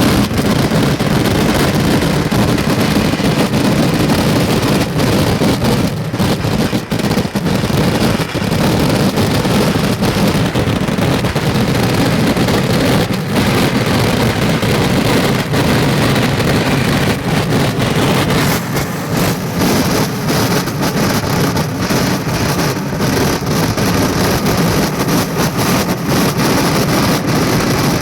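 Dense, unbroken barrage of firecracker and firework explosions, the individual bangs running together into one continuous loud rumble.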